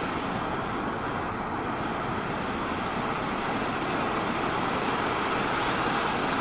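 Hand-held MAP gas torch burning with a steady hissing rush of flame as it heats a car body's lead seam to melt the lead out.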